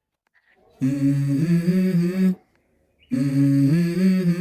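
Background music: a hummed vocal melody in two phrases of about a second and a half each, with a short pause between them.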